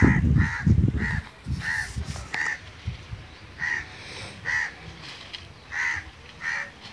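House crows cawing, a series of about nine short harsh caws with brief gaps between them. Low rumbling thumps, the loudest thing, run through the first second.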